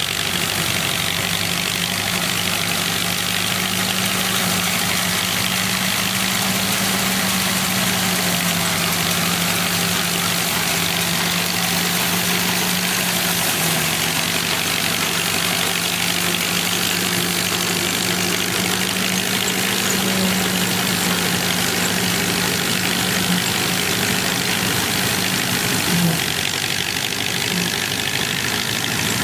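1931 Baldwin Gleaner pull-type combine at work: its four-cylinder Ford Model A engine runs steadily under load with the clatter and rush of the pickup and threshing machinery. The engine note wavers a little, and there is one brief knock near the end.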